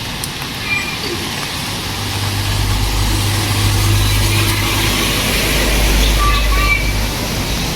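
A motor vehicle's engine drones past, building from about two seconds in and fading out near the end, over steady street and rain noise.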